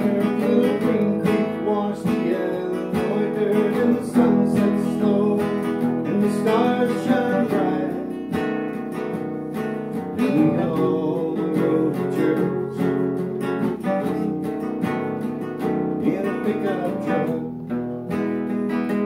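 Classical acoustic guitar strummed steadily, playing the chords of a song's accompaniment.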